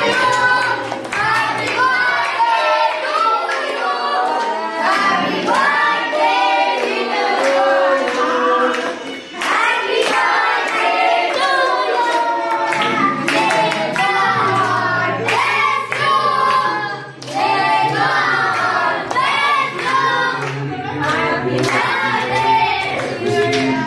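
Several voices, children's among them, singing together with hands clapping along.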